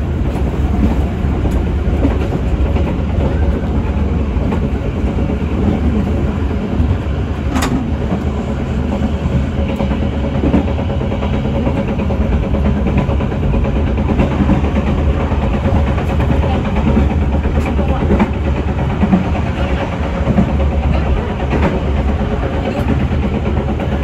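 Passenger train coaches running along the track, heard from the rear of the last coach: a steady rumble of wheels on rails over a low hum, with occasional sharp clicks.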